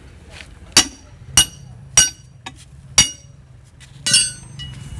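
A hammer striking a steel tyre lever against a tempo tyre's steel wheel rim: four sharp, ringing metal-on-metal blows about half a second to a second apart, breaking the tyre bead loose from the rim. Near the end comes a longer rattling metallic clatter.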